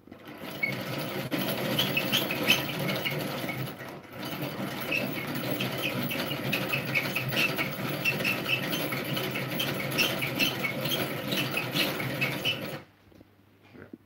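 Hand-cranked rotary egg beater clamped to the counter, cranked fast to whisk pancake batter in a plastic tub: a continuous whirring rattle of gears and beaters. It dips briefly about four seconds in and stops shortly before the end.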